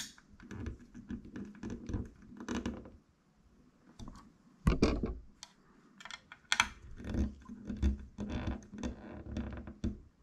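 A small screwdriver driving tiny screws into the metal window guide rails of a scale-model car door: irregular clicks, scrapes and taps of metal parts, with one heavier thump about halfway through.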